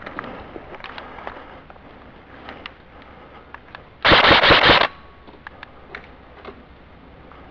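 Airsoft rifle firing one short full-auto burst of about three quarters of a second, about four seconds in. It is loud and close, as heard from a camera mounted on the rifle's scope. Faint scattered ticks come before and after.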